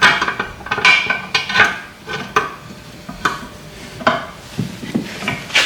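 Metal tools clinking and tapping on a motorcycle swing arm's bearing housing as needle bearings are worked out: irregular sharp strikes with a short metallic ring, several quickly at first, then about one a second.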